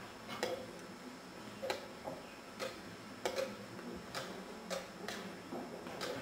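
Sharp wooden clicks of chess pieces being set down and chess clock buttons being pressed during fast blitz play, about ten irregular knocks, some in quick pairs.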